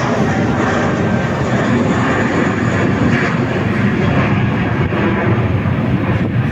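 Jet airliner's engines running loud and steady as the aircraft passes close by.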